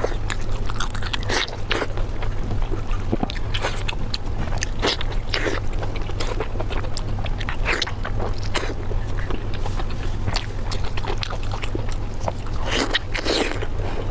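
Close-miked mukbang eating sounds: irregular biting and chewing with wet mouth clicks and smacks, over a steady low hum.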